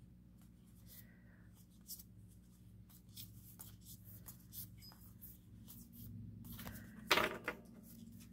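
Photocards being handled and sorted by hand: faint soft clicks and light taps of card on card, with a louder short clatter about seven seconds in.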